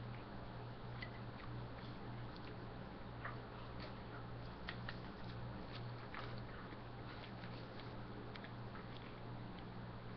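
A person chewing McDonald's food, with scattered small wet clicks and smacks of the mouth, over a steady low hum.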